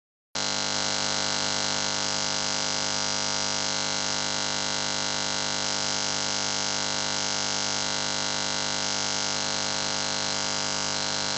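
Loud, steady electronic buzzing hiss from a digital audio glitch in the video-call sound, as the call's connection fails. It starts abruptly a moment in after dead silence and holds unchanged.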